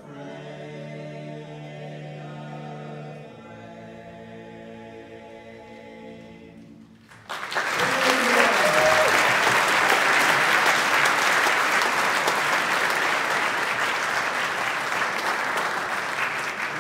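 Four-part a cappella quartet (bass, baritone, lead and tenor) holding its long final chord, with the lowest note dropping out about three seconds in. About seven seconds in the chord ends and the audience breaks into loud applause.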